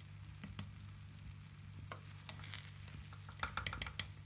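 A metal ladle turning and fluffing cooked rice in a metal pot, with scattered scrapes and clicks of metal on metal and a quick run of clicks near the end, over a steady low hum.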